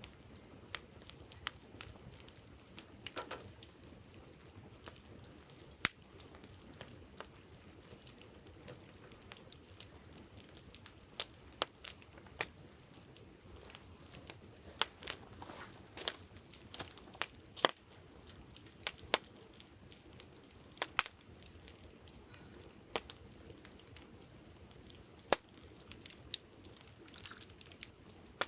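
Wood campfire crackling, with irregular sharp pops and snaps scattered over a soft steady hiss of flame.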